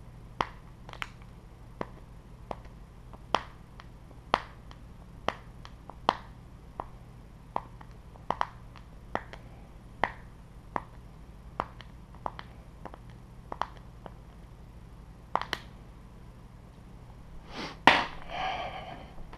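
A regular series of sharp, light clicks, about one a second, from hand work fitting a plastic spool holder onto a 3D printer frame, with a louder clatter of handling near the end.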